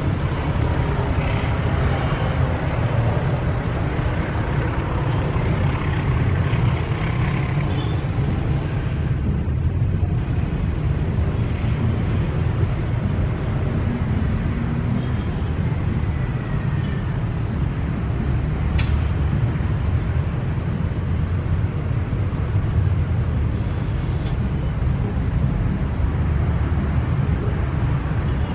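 Motorcycles, a pickup truck and cars driving across a railway level crossing, making steady traffic noise from their engines.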